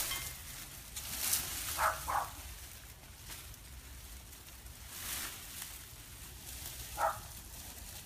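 Leafy sweet potato vines rustling and swishing in a few bursts as they are pulled up and gathered by hand. Short high chirps sound about two seconds in and again near the end.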